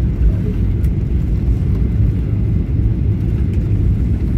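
Airliner cabin noise during the landing roll: a steady, loud low rumble of the engines and the wheels on the runway.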